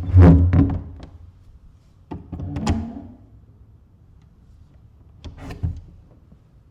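A door opening and closing: a cluster of knocks at the start, two sharp clicks with a short rattle about two to three seconds in, and a last thump about five and a half seconds in.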